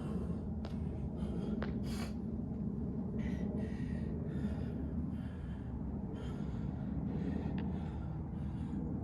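A person breathing hard and fast, winded from burpees, with short hissy breaths following one another quickly over a steady low rumble.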